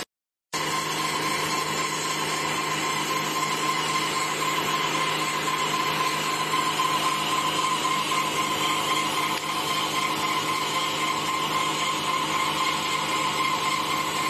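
CNC machine running steadily as it cuts into a stack of corrugated cardboard, a constant whine over the machine noise. It starts about half a second in.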